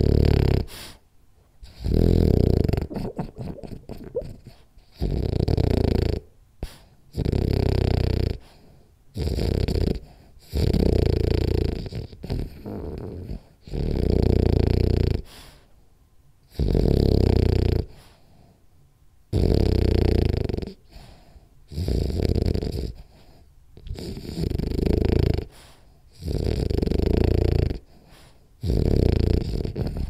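French bulldog snoring hard in its sleep: loud, rasping snores in a steady rhythm, about one every two seconds, with brief quiet pauses between breaths.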